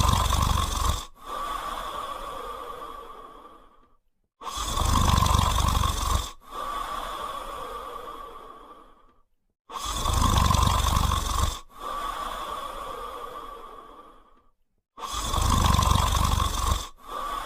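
French spaniel snoring in its sleep: four loud, low snores, each followed by a quieter breath that fades away, repeating evenly about every five seconds.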